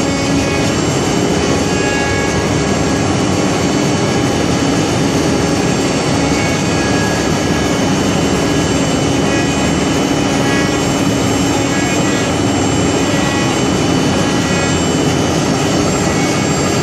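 4-axis multi-head wood CNC router running steadily, its spindles giving a constant whine over the dense noise of the machining.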